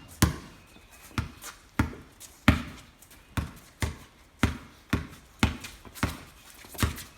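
A basketball being dribbled on a wet court, bouncing steadily about twice a second.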